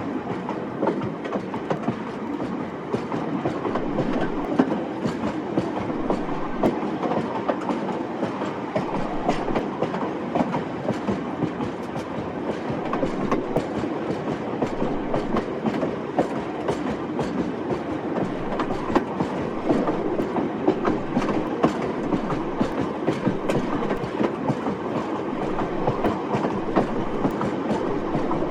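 Old train running along the track: a steady rumble with frequent clicks of wheels passing over rail joints, clickety-clack.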